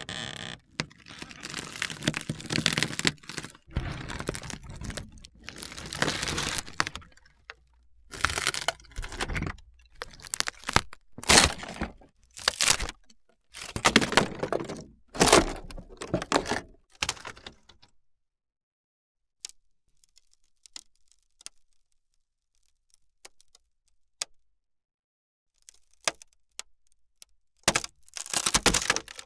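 Wood cracking and splintering: a dense run of sharp cracks and crackles for about seventeen seconds, then a few faint ticks, then another short burst of cracking near the end.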